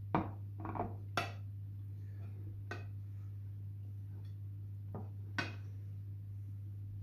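About six short light knocks and clicks, the loudest just after the start and another sharp one about five and a half seconds in, over a steady low hum.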